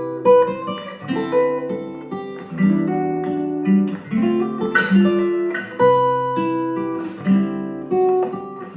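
Background music: a guitar picking and strumming chords, each note ringing out and fading.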